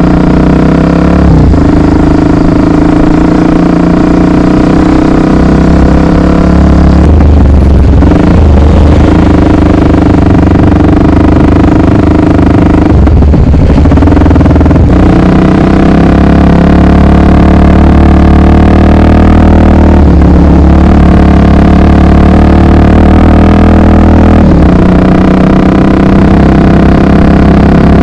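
Honda XR 250 Tornado's single-cylinder four-stroke engine running loud and steady while riding. The note briefly dips and changes pitch several times, as with throttle changes or gear shifts.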